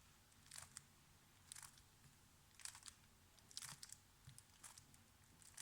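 Faint plastic clicking and scraping of a 3x3 Rubik's Cube as its faces are turned, five quick turns about a second apart. This is the mirrored algorithm that inserts a second-layer edge into the left slot.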